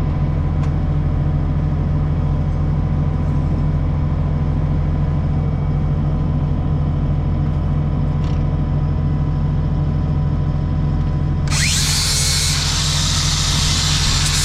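A steady low hum, then about eleven and a half seconds in a grinder spins up with a rising whine and starts grinding the edge of a steel rotary-cutter blade with a harsh high hiss.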